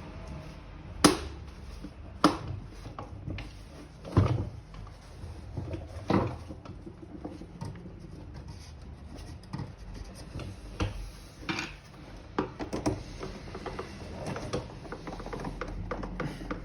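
Plastic housing parts of a vacuum cleaner being handled and pressed together: irregular clicks and knocks, with four sharper snaps in the first six seconds and lighter tapping and rattling after.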